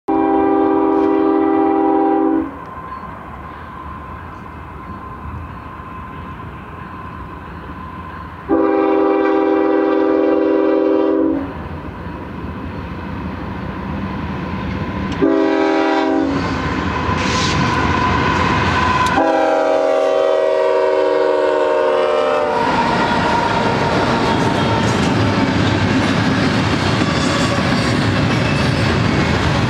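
Union Pacific GE diesel locomotives' air horn sounding a chord in the grade-crossing pattern: two long blasts, a short one, then a long one. Near the end the lead units pass close by, and the loud rumble and wheel clatter of the locomotives and double-stack container cars takes over.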